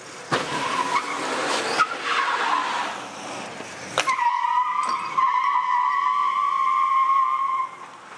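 Car tyres squealing on the tarmac. First comes a rough skid lasting a couple of seconds, then a sharp knock about four seconds in, then a long steady squeal that cuts off shortly before the end.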